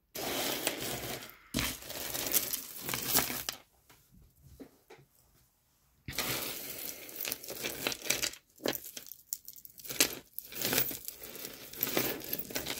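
Plastic bag crinkling and rustling as jewelry is pulled out of it, stopping for about two seconds near the middle and then starting again.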